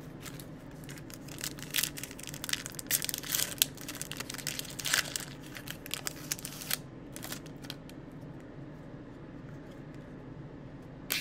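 Foil trading card pack wrapper being torn open and crinkled by hand, a dense run of crackling that is loudest a few seconds in and dies down about two-thirds of the way through, over a faint steady hum.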